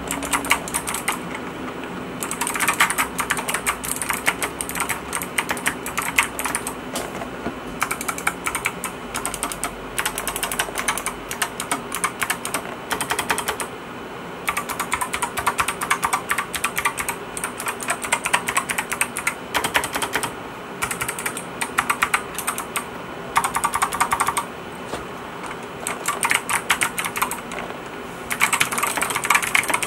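ABKO Hacker K7900 mechanical keyboard with Kailh clicky optical switches and PBT keycaps being typed on: fast runs of crisp key clicks in bursts, with brief lulls between them.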